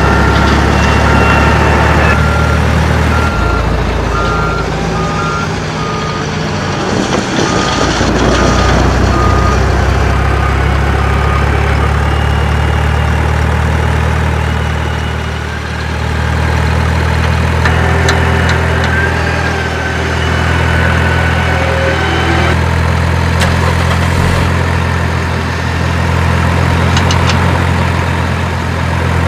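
Truck engine sound running steadily at idle, with a reversing beeper pulsing for about the first twelve seconds.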